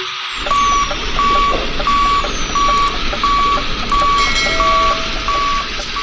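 Truck reversing alarm beeping about nine times at an even pace, roughly three beeps every two seconds, over a low engine rumble.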